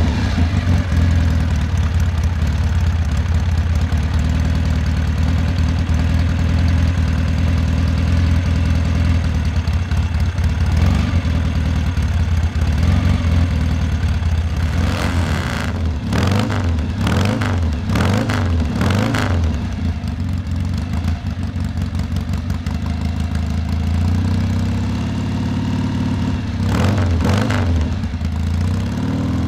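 Classic scrambler motorcycle's engine running at idle, with a run of throttle blips in the middle and a few more near the end.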